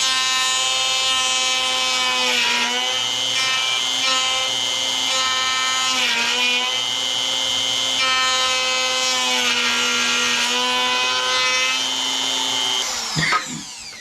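Palm router running at full speed while routing a wire channel in a wooden guitar body, its whine dipping in pitch now and then as the bit takes a deep cut. About a second before the end it is switched off and winds down, the pitch falling away.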